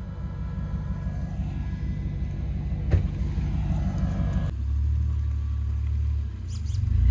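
Off-road truck engine idling with a steady low rumble and a sharp click about three seconds in. About halfway through it changes abruptly to a heavier, deeper rumble that swells near the end.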